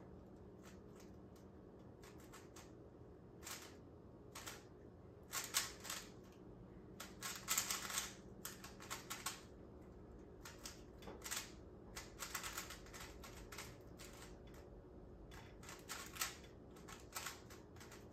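A Rubik's cube being turned by hand during a solve: quick runs of small plastic clicks as the layers are twisted, with short pauses between the runs.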